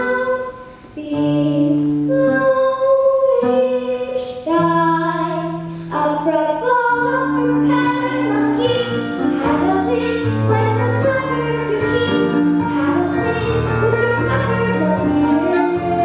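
Voices singing a show tune over instrumental accompaniment, holding long notes; a low bass line comes in about seven seconds in.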